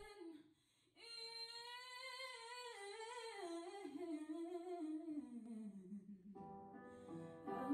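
A woman singing live, recorded on a phone and played back faintly: long held notes that waver and slowly fall in pitch, with the band's guitar chords coming in near the end.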